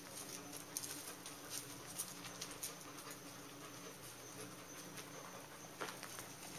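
Faint scuffing and light clicks of Dalmatians' and a boxer's paws on gravelly ground as the dogs play, over a faint steady hum.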